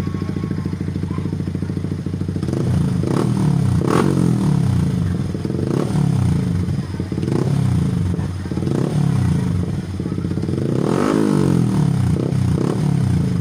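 Motorcycle engine running through an aftermarket Akrapovic exhaust: idling steadily for a couple of seconds, then revved in a series of throttle blips, the revs rising and falling several times.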